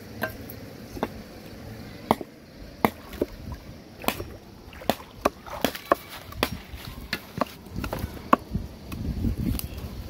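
A large machete-like knife chopping chilies on a round wooden chopping board: irregular sharp knocks of the blade on the wood, about one or two a second.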